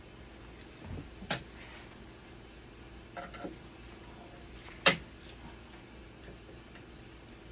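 A few sharp clicks and knocks of hard plastic and metal as parts of a dialysis machine's blood pump cabinet are handled with gloved hands and a small tool. The loudest comes near five seconds in, over a faint steady hum.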